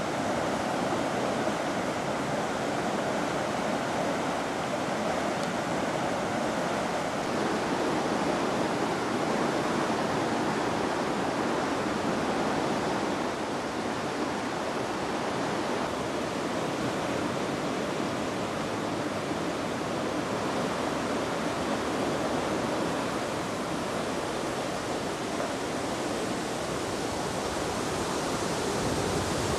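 Steady rushing of the Mura river in flood, an even noise of fast-flowing water.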